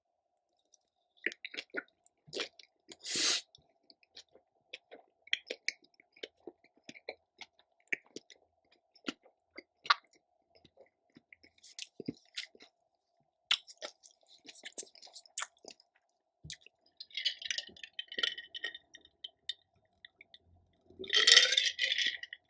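Close-miked eating sounds: soft chewing with scattered wet mouth clicks and smacks. A louder breathy rush comes near the end.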